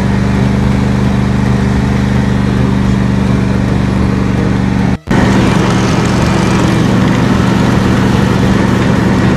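A John Deere riding lawn tractor's engine runs steadily while mowing grass. The sound cuts out for an instant about halfway through, then carries on the same.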